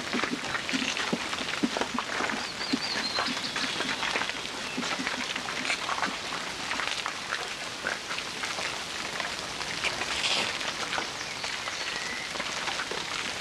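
Steady rain falling, a dense patter of drops, with a faint high chirp or two.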